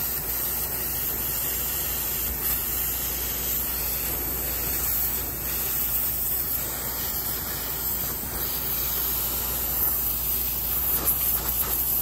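A steady hiss.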